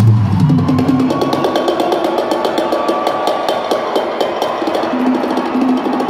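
Live rock drum kit played in a fast solo, a dense run of rapid strikes on drums and cymbals, amplified through an arena PA. The heavy bass and guitar tones drop out at the start, leaving mostly drums.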